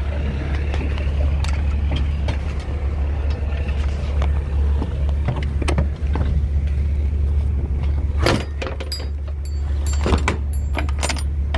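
Semi-trailer's rear swing doors being shut and latched: metal clanks and knocks from the doors and their lock-rod handles, loudest about eight seconds in and again between ten and eleven seconds, over a steady low rumble.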